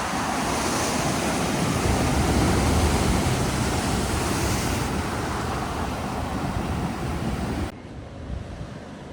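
Steady rushing outdoor noise that cuts off abruptly near the end, leaving a quieter background.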